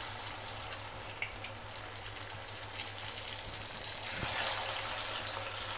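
Masala-coated rohu fish pieces sizzling as they deep-fry in hot oil in a kadai, a steady hiss. The sizzle grows louder about four seconds in as another piece is slid into the oil.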